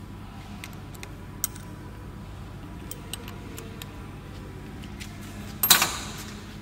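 Light metal clicks and taps of a lathe's four-way tool post as the cutting tool is set and clamped by hand, with one louder metallic clank near the end, over a steady low hum.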